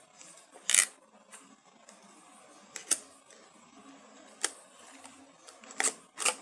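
Sharp clicks and knocks from the mouse's retail box and plastic packaging being handled and opened: five short strikes, the loudest just under a second in and two in quick succession near the end.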